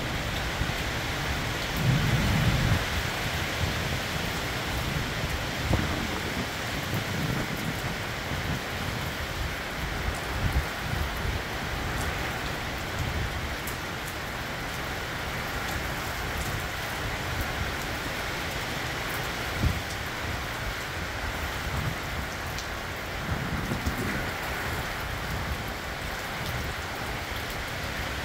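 Summer thunderstorm: heavy rain falling steadily, with thunder rumbling several times, loudest a couple of seconds in.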